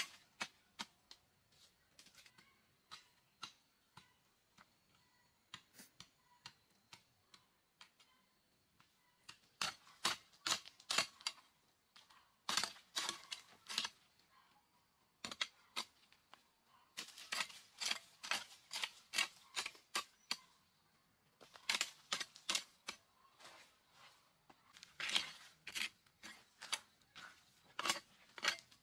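A metal hoe chopping and scraping into a stony dirt road, a run of sharp clinks and scrapes as the blade hits gravel and loose rock, coming in quick strings of strokes with short pauses between.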